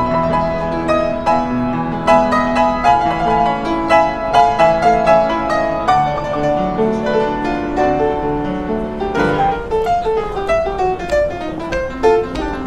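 Upright piano played by hand: a continuous flow of notes and chords, with many quick struck notes.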